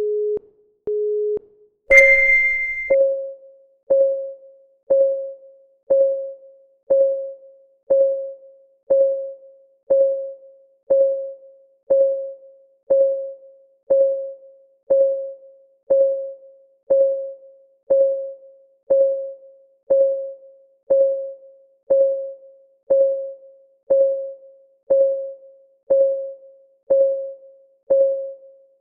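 Electronic timer sounds: two short low beeps a second apart, then a louder, higher beep about a second long marking the start of the countdown, followed by a steady synthesized clock tick, one tick a second.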